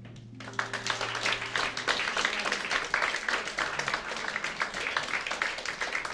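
Audience applauding, many hands clapping, starting about half a second in and carrying on steadily. A last low held note from the band dies away under the first two seconds.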